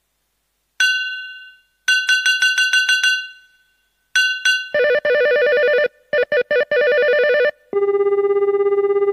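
Casio CT-X series keyboard playing its built-in sound-effect tones in turn. About a second in comes a single bell-like ping, then a quick run of repeated pings and two more. After that an electronic warbling ring tone comes in twice with short breaks, and near the end a steady buzzing tone pulses rapidly.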